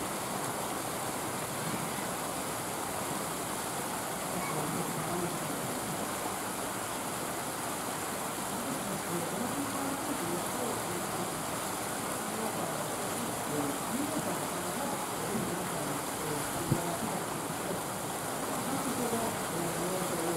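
Steady background hiss with faint, indistinct voices, and one sharp click about three-quarters of the way through.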